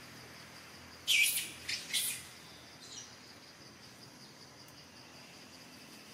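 Three short shrill calls in quick succession about a second in, with a fainter one a second later, over a faint steady high insect buzz.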